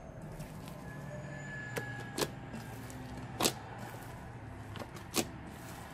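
Hands squishing and stretching thick slime in a bowl, with several sharp pops of trapped air bursting, the loudest about three and a half seconds in.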